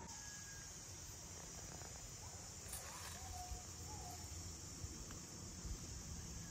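Faint outdoor ambience: a steady high insect hiss, a few short bird-like chirps, and a low rumble of wind.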